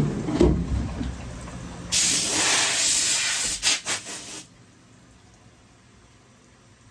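Compressed air hissing hard for about two and a half seconds. It sputters in a few quick pulses before it cuts off. A low rumble comes before it, in the first second or so.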